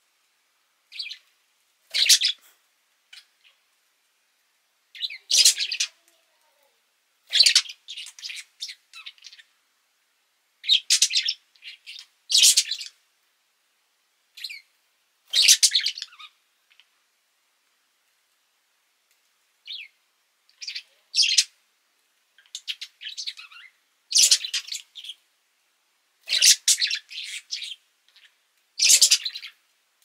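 Budgerigar chirping and chattering in short bursts every second or two, with a pause of a few seconds a little past the middle.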